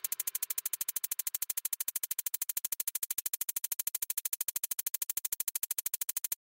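Quiet electronic background music: a steady, rapid pulsing of about eleven pulses a second that cuts off suddenly near the end.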